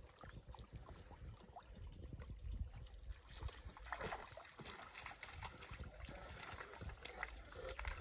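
Faint splashing and trickling of shallow creek water as a Saint Bernard wades over the rocks of a streambed. The splashes come irregularly and grow busier about four seconds in and again near the end.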